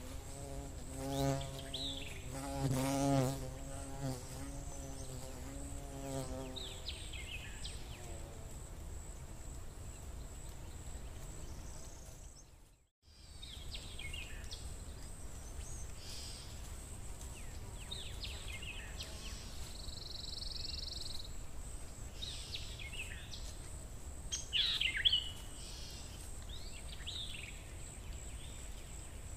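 An insect buzzing close by, wavering in pitch, for several seconds near the start. Short high chirps come on and off throughout over a steady faint high whine, with a brief drop-out partway through.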